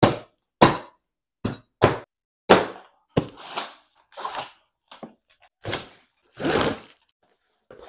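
A series of about ten sharp whacks and cracks, two of them longer and rasping, as the rowing machine's cardboard shipping box is struck and broken open.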